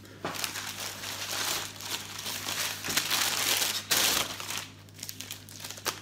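Plastic mailing bag crinkling and rustling as it is handled and opened, loudest about four seconds in.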